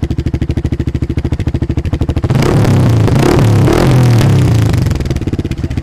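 Kawasaki Barako II single-cylinder motorcycle engine through an aftermarket bullet exhaust pipe with its silencer insert fitted. It idles with an even, pulsing beat, is revved up for about two and a half seconds, and then drops back to idle.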